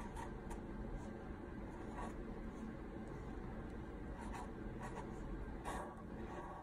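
Marker tip scratching across paper as a drawing is outlined, in short, irregular strokes.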